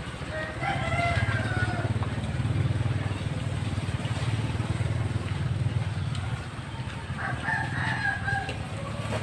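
A rooster crows twice, once about half a second in and again near the end, over a steady low engine drone.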